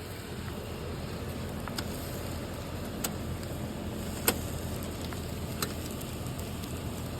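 Shrimp grilling over a hot fire: a steady sizzle with a sharp crackle or pop every second or so, the loudest pop about four seconds in.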